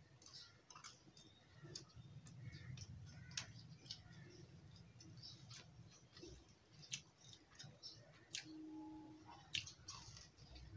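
Faint crunching and chewing of crisp fried bread pakoda, with scattered sharp crackles from the fried batter as it is bitten and chewed.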